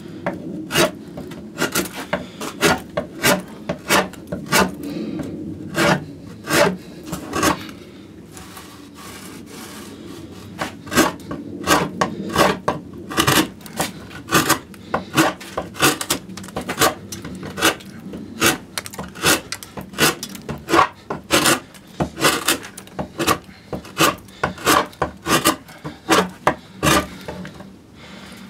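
A carving gouge cutting into a spruce cello top during rough arching: short scraping cuts in quick succession, one or two a second, easing off briefly about eight seconds in.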